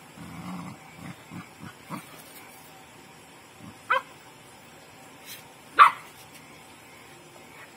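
A dog gives two short, sharp barks about two seconds apart, the second louder, after a few soft low sounds.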